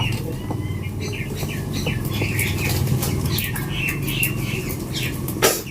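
Small birds chirping repeatedly over a steady low hum, with one short, sharp, loud sound near the end.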